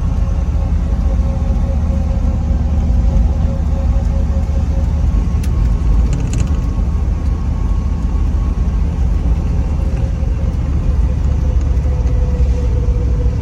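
1966 Chevrolet Corvette's 327 small-block V8, the 350 hp version, running steadily under way on a test drive, with a steady low drone of engine and road noise.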